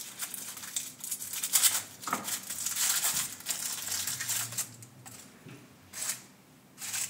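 Small packaging wrapper crinkling and tearing as it is pulled open by hand: an irregular rustling crackle, busiest in the middle, with two short bursts near the end.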